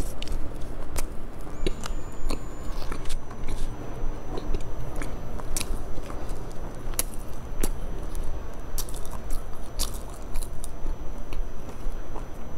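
Close-miked biting and chewing of a soft pink layered sandwich-bread slice, with many small sharp clicks from the mouth and food scattered throughout.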